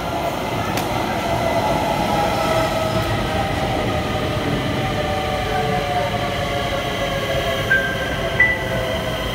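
Stockholm metro train pulling into an underground station and slowing along the platform: steady rumble of wheels on rail under a whine that falls slowly in pitch as it brakes. Two short brake squeals near the end.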